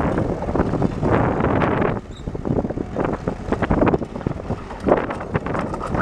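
Gehl 7810 skid steer's four-cylinder turbo diesel running as the machine drives and turns on steel tracks, with wind buffeting the microphone.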